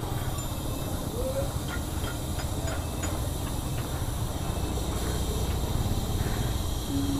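Compressed air hissing steadily as an air-hose chuck fills a motorcycle's flat tubeless rear tyre through its valve.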